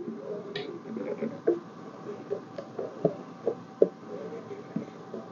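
Irregular light knocks and clicks of hands handling and adjusting teleprompter parts, several sharper taps in the middle over soft rustling.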